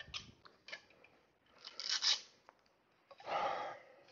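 A few brief scrapes and rattles of the cot's metal hinged leg frames being picked up off the floor and handled, the loudest about two seconds in.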